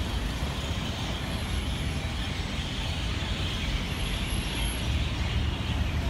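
Steady rumble of city street traffic with the dense, continuous chatter of a large flock of birds in the street trees laid over it, the bird noise thick enough to compete with the traffic.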